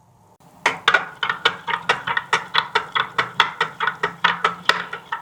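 A spoon stirring in a cooking pan, clinking against its sides in quick even strokes, about five a second, starting about half a second in.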